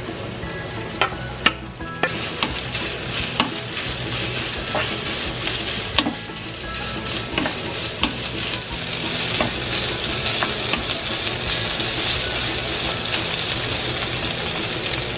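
Garlic scapes and fish cake slices sizzling in a frying pan while a wooden spoon stirs them, with scattered knocks and clatters of the spoon against the pan in the first half. The sizzle grows louder a little past halfway.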